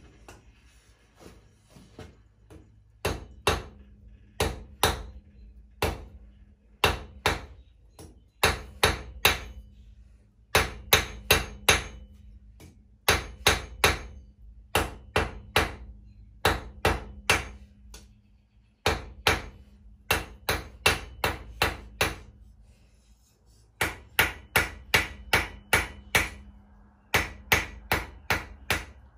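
Hand hammer striking hot steel on an anvil in quick runs of two to five blows with short pauses between, each blow ringing sharply. This is freehand forging, necking down the shank of a forged screw over several heats.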